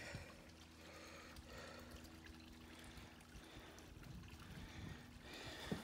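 Faint, steady trickle of water from a garden pond's spout falling into the pond, with a faint low hum underneath.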